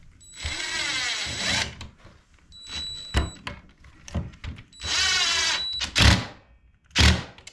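Small cordless impact driver run in two short bursts, its hammering mechanism rattling as it drives a Torx screw back into a Stihl MS462 chainsaw's handle assembly, with a brief whir between them. A couple of clunks follow near the end.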